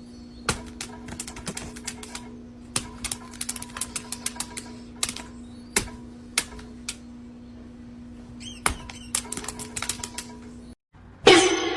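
Rapid, irregular sharp clicks and taps, like keys or claws on a hard surface, over a steady low hum. Just before the end a loud, harsh sound with wavering pitch breaks in.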